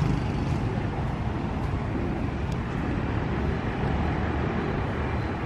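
Steady outdoor street background noise: an even low rumble and hiss, with no single event standing out.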